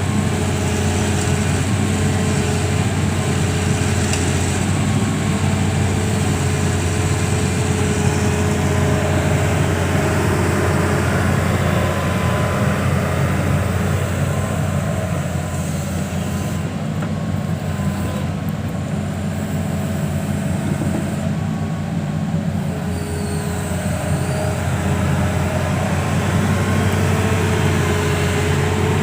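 Excavator's diesel engine running steadily, a deep continuous hum.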